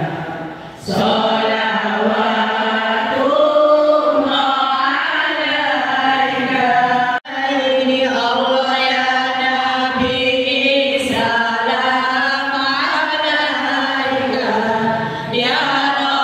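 A large group of women singing an Islamic devotional song together in unison, unaccompanied and chant-like. The singing breaks off abruptly for an instant about seven seconds in.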